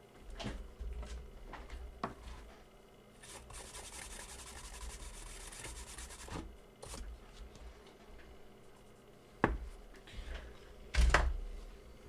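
Hands handling an ECU and tools on a workbench: rubbing and light clicks, then a steady hiss for about three seconds in the middle. Two sharp knocks follow near the end, the second the loudest.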